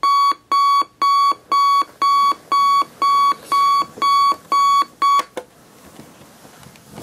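Alarm clock beeping: a high electronic tone pulsing about twice a second, ten beeps, which cut off abruptly a little over five seconds in.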